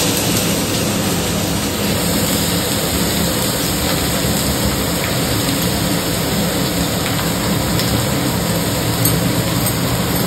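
Chopped onions sizzling steadily in hot ghee in a wok.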